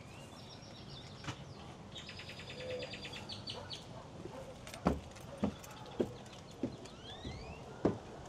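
Footsteps climbing wooden porch stairs: about six knocks in a steady walking rhythm from about halfway through. Birds chirp and trill in the background, mostly in the first half.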